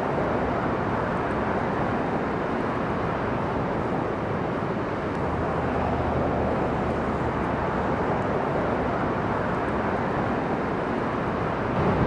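Willamette Falls, a large waterfall, rushing steadily: an even, unbroken noise of falling water.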